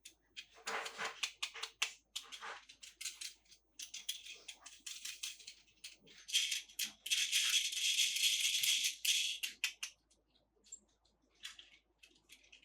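Plastic toy packaging crinkling and rustling in repeated bursts, with small clicks and rattles of handling. It is loudest and most continuous for a few seconds past the middle.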